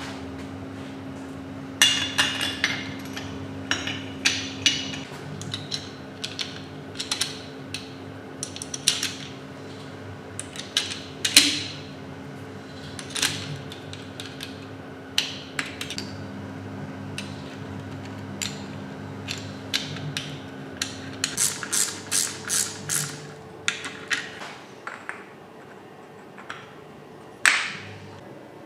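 Irregular sharp metallic taps, knocks and clinks of hand tools on engine parts, some in quick clusters. Under them runs a steady low hum that stops about two-thirds of the way through.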